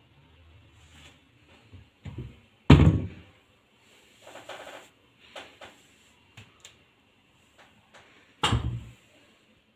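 Kitchen cupboard being handled: a loud thump about three seconds in, a few light clicks and rattles, then the cupboard door thudding shut near the end.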